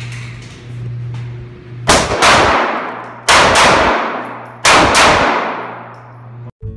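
Handgun fired six times as three quick double taps, about a second and a half between pairs, each shot echoing and ringing out in an indoor range, over a steady low hum. Acoustic guitar music starts at the very end.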